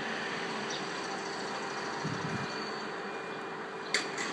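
Steady street traffic noise with a faint steady hum, a short low rumble about two seconds in, and a sharp click near the end.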